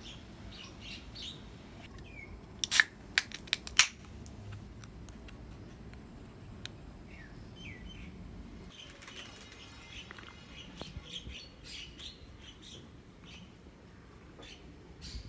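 Small birds chirping repeatedly in short high calls, with a quick cluster of four or five sharp clicks about three seconds in.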